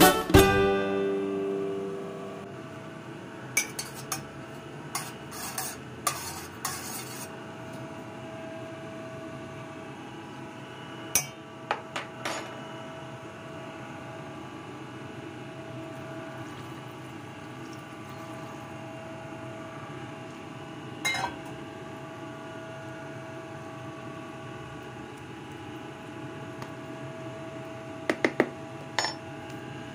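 Scattered clinks and taps of a metal kitchen utensil against a frying pan and a plastic container as fried eggplant slices are laid in, a cluster of them a few seconds in and a few more near the end, over a steady hum. Music fades out in the first couple of seconds.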